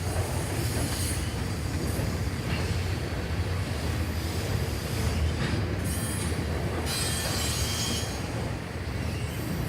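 CN freight train rolling past with a steady low rumble and the hiss of steel wheels on the rails.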